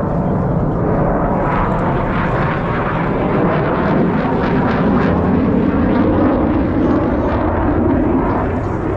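Jet engine roar from Blue Angels F/A-18 Super Hornets in flight: loud and steady, swelling a little in the middle.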